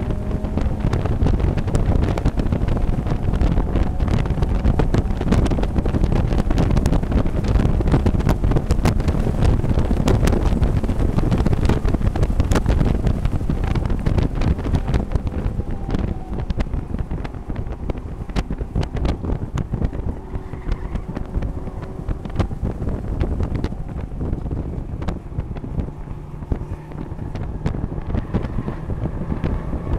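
In-car sound of a Mazda MX-5 race car at racing speed: the engine running hard, its pitch rising and falling with the throttle and gear changes, under heavy wind and road noise buffeting the microphone.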